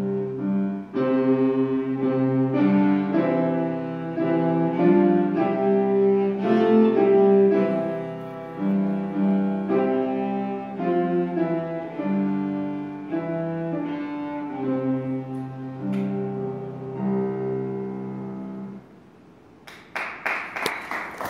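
Solo cello played with the bow: a melody of sustained notes ending on a long low note. After a short pause, a quick run of handclaps begins near the end: applause.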